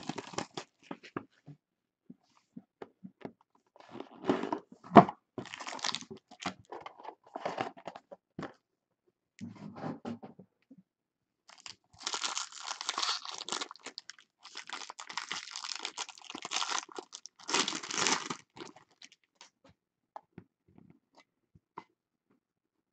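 Baseball card box packaging being handled, torn open and crinkled: scattered rustles and clicks at first, then several longer bouts of ripping and crinkling wrap from about halfway in.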